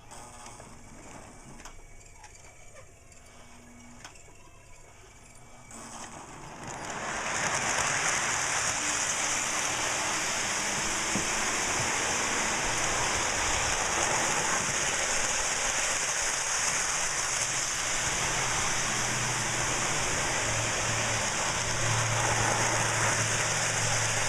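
Lionel O gauge model diesel train running on its track: a steady rolling rattle with motor hum that comes up about six seconds in and keeps going. Before that there are only a few faint clicks.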